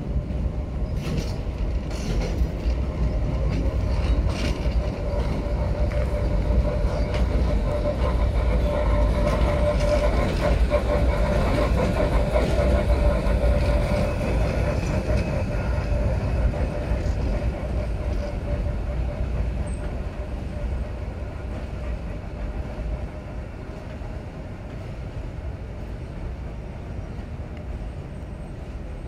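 A diesel work locomotive towing new R211 subway cars rolls along elevated track with a steady rumble and clicks of the wheels over rail joints. It is loudest around the middle and eases off toward the end.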